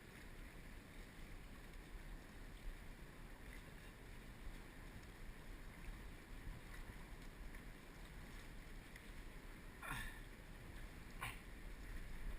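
Steady low rumble of wind on the microphone by open water, with two short sharp sounds about a second and a half apart near the end.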